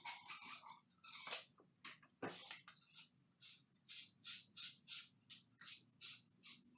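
Hand tool working metal pipe in rhythmic back-and-forth scraping strokes, uneven at first, then steady at about three strokes a second.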